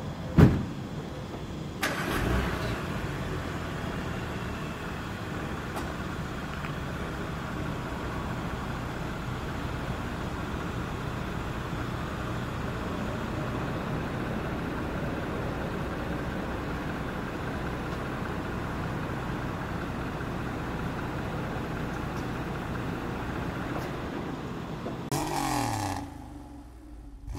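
A car door shuts with a thump, then about two seconds in the 2020 Audi A7's engine is started from cold, catching at once and settling into a steady idle. Near the end, a short sound effect with falling tones plays.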